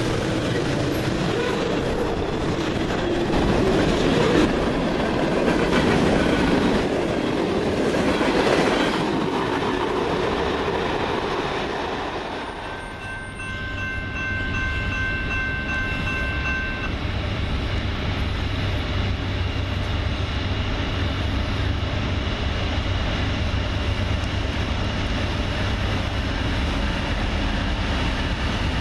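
Freight cars rolling past and clattering over the rails. About halfway through, a diesel freight locomotive's horn sounds one long chord of several tones for about three seconds. The steady low rumble of approaching diesel locomotives follows.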